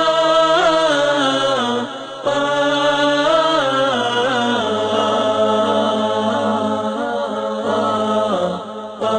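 A solo voice chanting long, melodic held phrases that bend in pitch, pausing briefly about two seconds in and again near the end.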